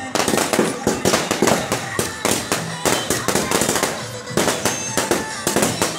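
Firecrackers going off in quick, irregular succession, several sharp bangs a second, among fireworks spraying showers of sparks.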